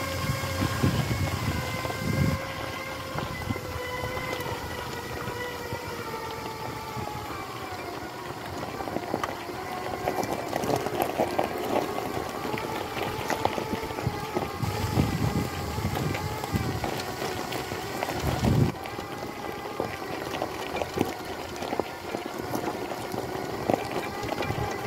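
Whine of an Extreme X8 four-wheel-drive power wheelchair's electric drive motors as it drives along, the pitch drifting slightly with speed. From about a third of the way in, its knobbly tyres crunch over loose gravel.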